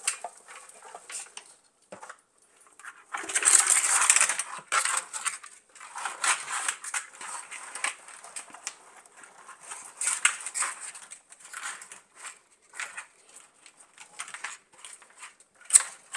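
Dry, crackly rustling of a tangly dried plant spray being handled and spread out in a bowl, in irregular bursts, loudest about three to four seconds in.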